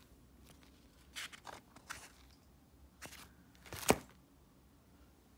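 Paper notebooks and laminated sheets rustling in a few short bursts as they are handled and shifted about. A sharp tap comes just before four seconds in.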